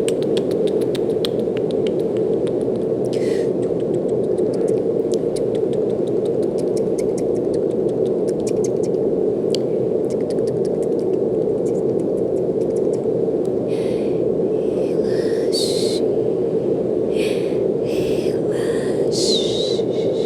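Brown noise: a steady, even rushing hiss, heaviest in the low-middle range, that keeps the same level throughout. Faint clicks run through it, and in the last six seconds several short, soft, higher sounds come over it.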